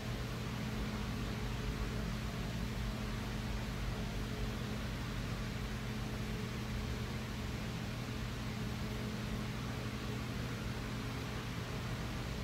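Steady machine hum with a low tone and an even hiss, constant throughout.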